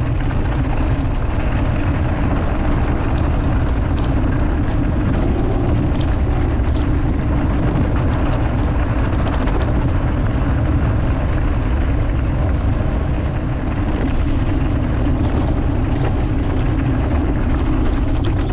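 Steady wind rush buffeting the microphone of a camera on a moving mountain bike, mixed with the rumble of its tyres on the track.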